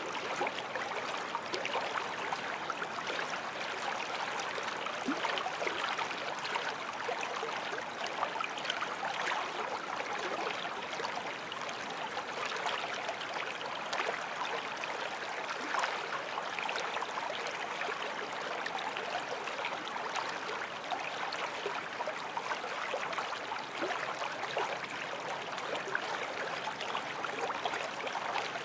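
Water running steadily in a small stream, a constant babble of flowing water with small splashes and gurgles.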